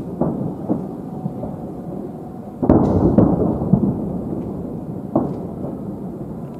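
Fireworks salute shells bursting: a continuous low rumble of booms, with one sharp, loud bang about two and a half seconds in and smaller cracks after it.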